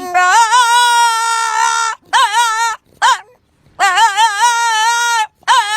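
A dog howling back at its owner in long, wavering calls. It gives a call of about two seconds, a shorter call and a brief yelp, then another long call of about a second and a half, and ends on a short one.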